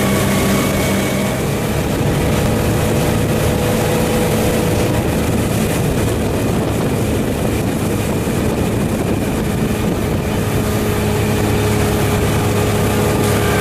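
Motorboat engine running steadily at speed, its note shifting slightly a couple of times, over a constant rush of wind and water noise.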